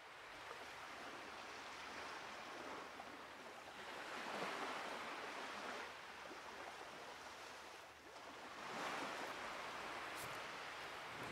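Sea waves washing onto a sandy beach, a steady hiss that fades in and swells twice, about four seconds in and again near nine seconds.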